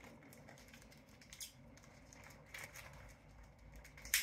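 Faint rustling and light clicks of plastic wrapping being handled and peeled off a toy figure's hands, with a sharper click near the end.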